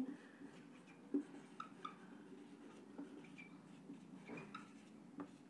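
Faint squeaks and taps of a marker pen writing on a whiteboard.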